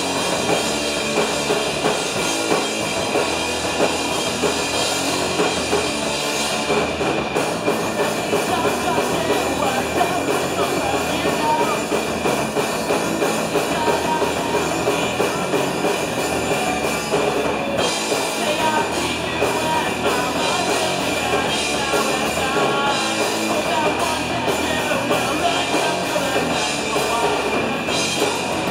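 Live punk rock band playing: electric guitars and a drum kit, with vocals sung into the microphone.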